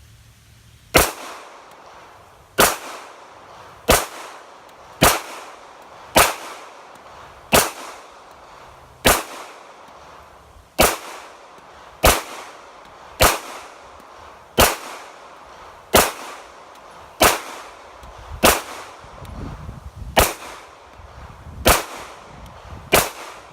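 Seventeen single pistol shots from a Sig Sauer P320, fired at a slow, steady pace of about one every second and a quarter. Each is a sharp crack with a brief tail.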